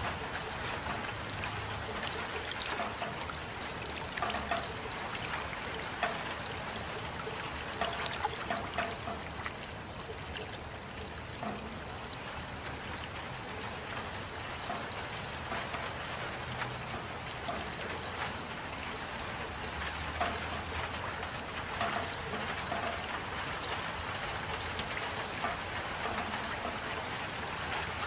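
Steady rain falling, with scattered louder drops and splashes.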